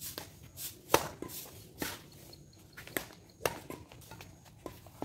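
Badminton rackets striking a shuttlecock in a singles rally: several sharp hits about a second apart, the loudest about a second in.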